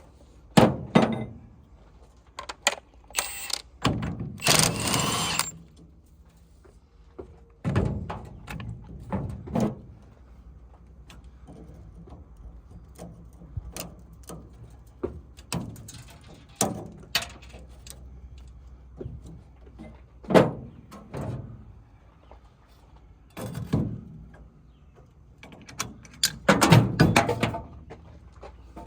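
Irregular metal clanks, knocks and clicks of a steering wheel puller and hand tools being fitted and worked on a Willys MB / Ford GPW steering wheel, with a longer noisy stretch about three to five seconds in.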